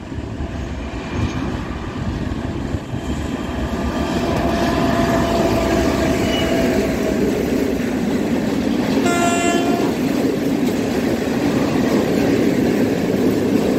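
Diesel-hauled freight train of tank wagons passing close by. The locomotive's engine grows louder as it comes up and goes past, then the wagons' wheels rumble and clatter steadily over the rails. A brief high tone sounds once, about nine seconds in.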